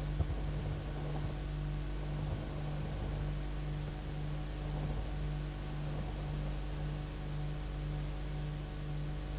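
Steady electrical mains hum under a constant hiss: the noise floor of an old videotape recording. A single click sounds just after the start.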